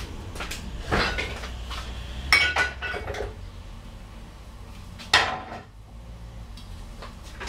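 Kitchenware being handled: a few separate knocks and clinks of dishes and utensils, one with a short metallic ring, the loudest knock about five seconds in, over a low steady hum.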